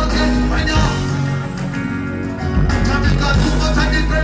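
Live dancehall music played loud through a big stage PA, with a vocalist on the microphone over the beat. The bass drops out for about a second midway, then comes back in.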